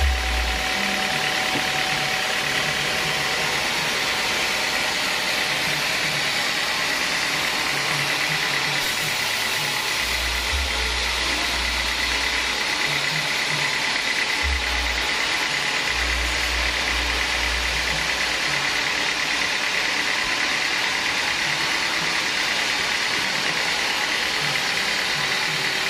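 Homemade band sawmill running, its vertical band-saw blade cutting lengthwise through a teak log with a steady high whine over the machine's drone. Low rumbles come and go in the middle of the cut.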